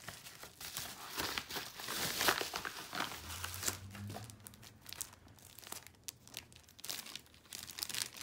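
Crinkling and rustling of a padded paper mailer and plastic wrapping being opened and handled, in irregular crackles that are busiest in the first few seconds and thin out to a few scattered clicks later.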